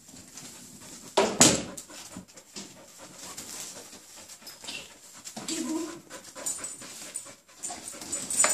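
German Shepherd puppy panting, with a loud, rough burst of noise about a second in.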